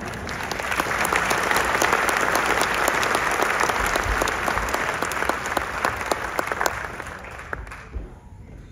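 Audience applauding: a dense clatter of clapping that builds over the first second, holds, then dies away near the end.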